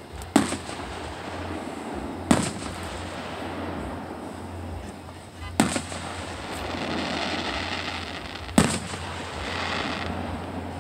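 Aerial firework shells bursting: four sharp booms a few seconds apart, each with a short echoing tail, over steady background noise.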